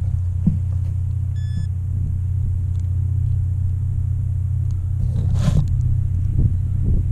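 A steady low rumble on the quadcopter camera's microphone. A short beep comes about one and a half seconds in, and a brief rustle about five and a half seconds in.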